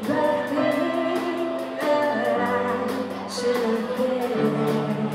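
Live band playing a song: a woman singing over piano, guitars and a drum kit, with a cymbal ticking in a steady beat.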